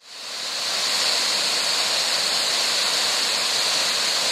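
Waterfall rushing: a steady, even rush of falling water that fades in over the first second.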